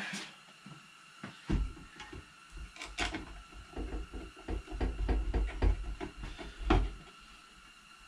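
Metal parts of a kerosene heater being handled and fitted: a run of small clicks, knocks and scrapes with low bumps, sharpest about three seconds in and again near seven seconds, then it settles.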